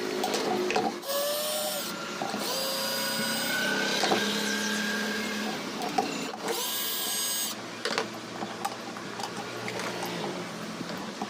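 Small electric power-tool motor running in several short bursts, its whine rising as it spins up and then holding steady.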